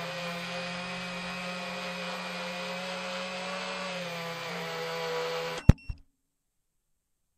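FPV racing quadcopter's motors and propellers whining steadily, heard from its onboard camera, growing a little louder just before a sharp knock about five and a half seconds in as it comes down on artificial turf. A second smaller knock follows, then the sound cuts off.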